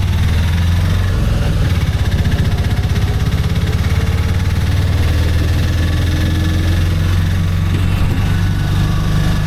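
Engine of a three-wheeler auto tempo (shared auto-rickshaw) running steadily with a low, fast-pulsing hum.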